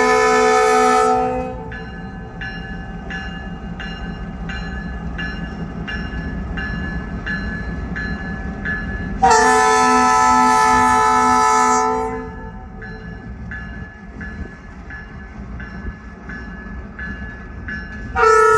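Diesel passenger locomotive sounding its multi-chime air horn: a blast right at the start, a longer one from about nine to twelve seconds in, and another starting near the end. The locomotive bell rings steadily about twice a second, over the low rumble of the diesel engine.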